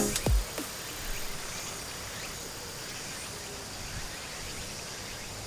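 Steady outdoor rural ambience with faint insect chirring, after a music sting ends with a short falling tone at the very start.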